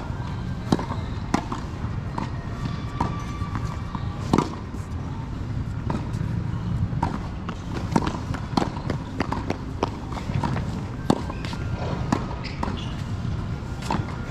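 Tennis rally on a hard court: sharp pops of racket strokes and ball bounces every second or so, a few much louder than the rest, over a steady low rumble.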